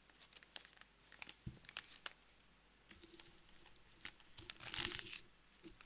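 Crinkling of a Teeccino coffee-substitute bag as it is handled and turned in the hands: scattered faint crackles, with a louder stretch of rustling about four and a half seconds in.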